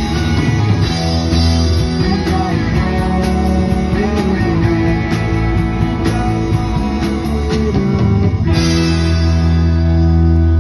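Live rock band playing guitars and drums. About eight and a half seconds in, the drum hits stop and the band holds one sustained chord that rings on.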